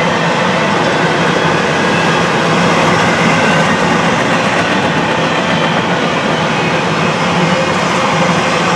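A freight train of empty intermodal well cars rolling steadily past, close and loud: a continuous, even noise of steel wheels on rail and rattling cars.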